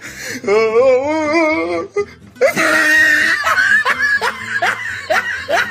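Comic meme laughing sound effect: a wobbling, warbling laugh, then a run of quick repeated laughs over music.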